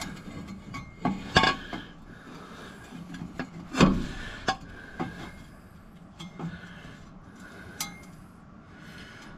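Metal exhaust pipe bends clanking and clinking against each other and the truck as they are handled and test-fitted: a handful of sharp separate knocks, the loudest about one and a half and four seconds in.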